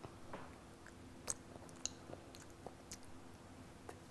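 A child biting and chewing a piece of chocolate eggshell, with a few faint, sharp crunching clicks; the loudest comes about a second in.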